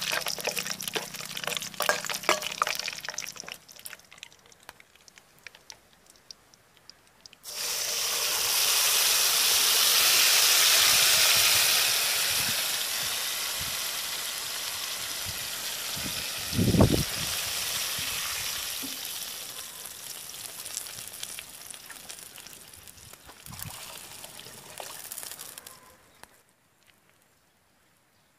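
Metal ladle stirring and scraping vegetables frying in a metal pot. About seven seconds in, liquid goes into the hot pot and it starts hissing loudly; the sizzle slowly dies away over the next twenty seconds, with a single low thump partway through.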